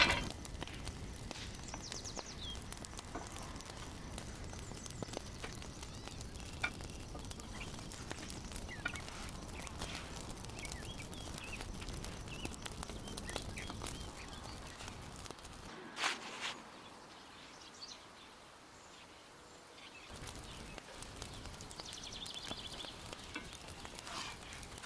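Thin flatbread cooking on a hot iron griddle over a wood fire: a steady low hiss with scattered small crackles. A sharp metal knock at the start as the pan is set down on the stove, another knock about sixteen seconds in, and birds chirping briefly now and then.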